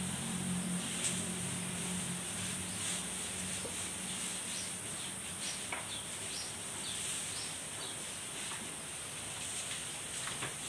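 Barn ambience dominated by a steady high-pitched insect drone, with scattered short chirps and small clicks. A low hum is also present and fades out about four seconds in.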